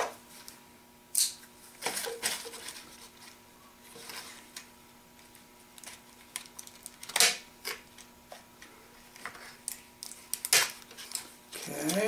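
Scattered clicks, taps and rustles of cardboard and plastic packaging as a tiny toy RC truck is worked loose from its box insert with a small metal tool, a few sharper clicks standing out. A faint steady hum runs underneath.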